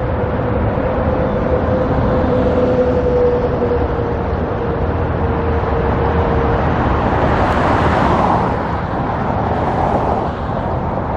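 Road traffic going by: a steady wash of tyre and engine noise, with vehicles swelling past about eight and ten seconds in. A faint steady whine slowly sinks in pitch and fades out about halfway through.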